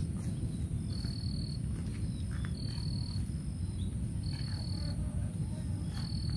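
Insects calling in forest vegetation: a steady thin high whine, with a short high note repeating about every second and a half to two seconds, over a steady low rumble.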